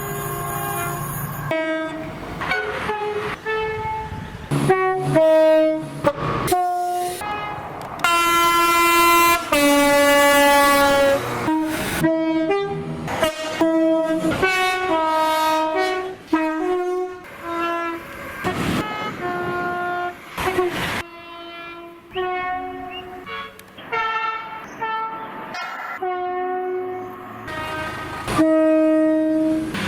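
A rapid-fire run of British train horn blasts, spliced one after another with abrupt cuts. Many step between two notes, and the rumble and rush of passing trains runs under some of them.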